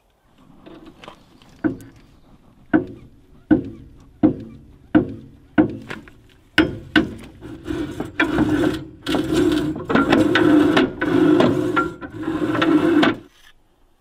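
Hand work on a bandsaw mill's metal parts: about eight sharp metallic knocks, each with a short ring and a little under a second apart, then several seconds of rough scraping in a few stretches that stops abruptly near the end.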